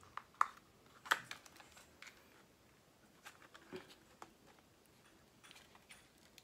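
Scattered small clicks and rustles of hands handling plastic plug connectors and wires on a radio-controlled truck's chassis, the loudest clicks about a second in.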